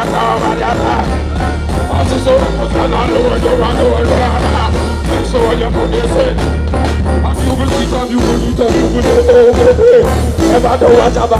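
Live reggae backing band playing with a heavy bass, drums, guitar and keyboards, with a singer's voice over the music.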